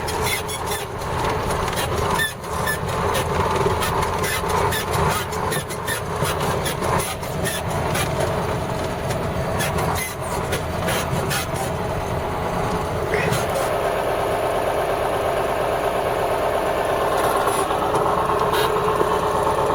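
KAMAZ fuel tanker truck's engine running while driving, with frequent knocks and rattles over the rough road for the first twelve seconds or so; after that the engine runs on more steadily.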